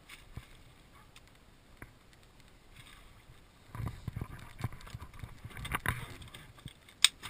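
A faint steady hiss of wind and water, then from about halfway a run of irregular knocks and bumps, with one sharp click near the end.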